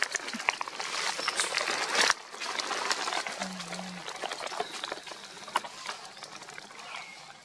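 A long-tailed macaque eating a ripe mango: many small irregular wet clicks and smacks of chewing, with crackly rustling. The level drops suddenly about two seconds in.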